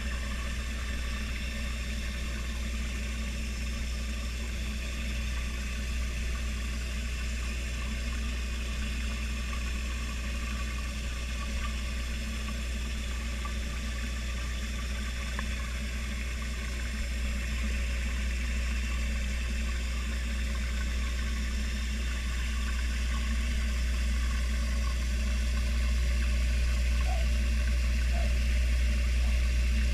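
Steady low mechanical hum, like a motor running continuously, growing a little louder in the last few seconds.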